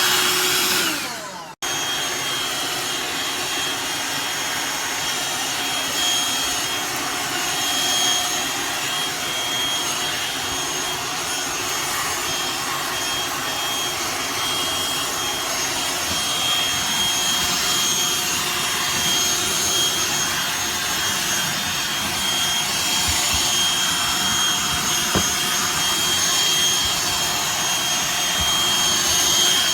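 Black+Decker Dustbuster cordless handheld vacuum running steadily, a constant rush of air with a high whine, after a brief drop-out about a second and a half in.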